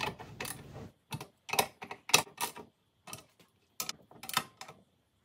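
16 mm ratcheting socket wrench clicking in short strokes as it tightens the bolts that fix a drill press column to its base. The sharp clicks come one or two at a time, unevenly spaced, with short quiet gaps between them.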